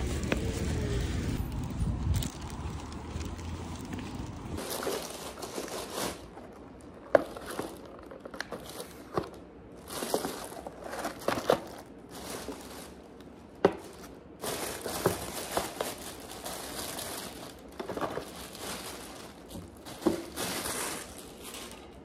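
Plastic takeout bag crinkling and rustling as food is unpacked, with sharp knocks as cardboard boxes and a paper bowl are set down on a hard tabletop. For the first four seconds or so there is only a low steady rumble.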